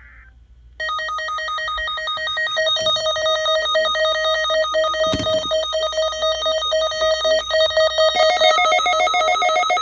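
Emergency alert attention tone: a loud, harsh electronic tone pulsing very rapidly like a ringing telephone bell, signalling that an alert message follows. Its pitch steps up slightly about eight seconds in.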